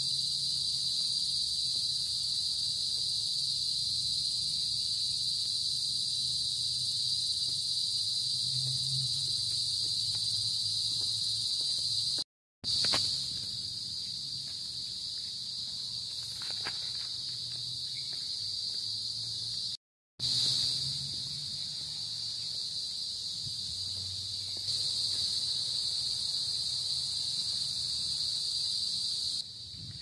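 A chorus of insects in the trees buzzing steadily at a high pitch. It breaks off completely twice for a split second, a little under halfway and about two-thirds through.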